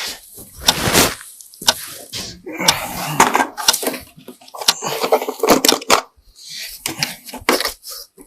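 An irregular clatter of sharp knocks, clicks and crashes, some loud and some light, with short gaps between them.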